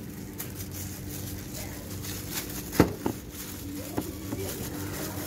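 A plastic-wrapped parcel being stuffed into the front storage pocket of a Honda scooter. There are scattered knocks and rustles, the sharpest about three seconds in, over a steady low hum.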